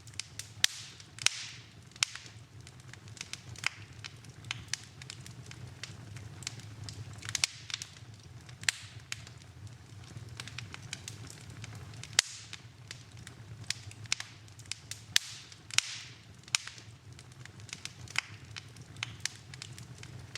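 Wood fire burning in a fireplace, crackling and popping irregularly with sharp snaps, several loud ones spread through, over a low steady rumble of the flames.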